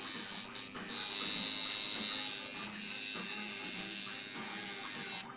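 Electric tattoo machine buzzing steadily as the needle works, cutting out suddenly near the end.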